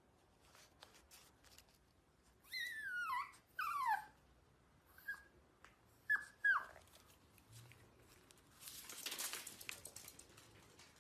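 Chihuahua whining: two long whines that fall in pitch, then three short, high whimpers. A rustle near the end.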